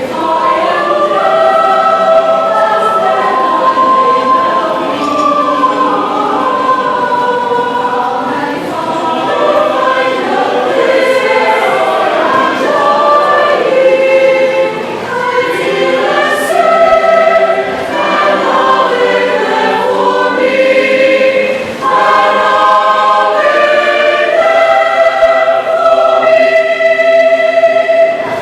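A choir singing, many voices holding sustained notes together in phrases, in a gospel or church style.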